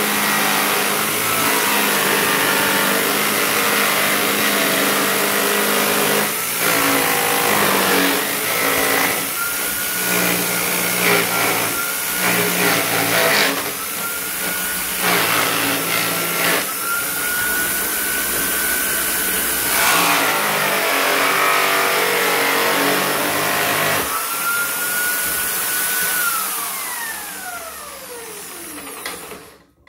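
Electric drill running a homemade sanding drum, its motor whine dipping and recovering in pitch several times. Near the end the whine falls away steadily as the drill winds down to a stop.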